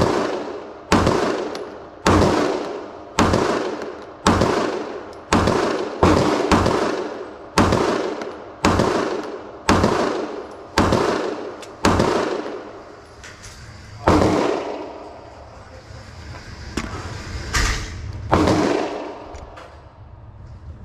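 Gunshots from a firearm being fired at a shooting range, one about every second for the first twelve seconds, each with a ringing tail. After that, a few single shots come several seconds apart.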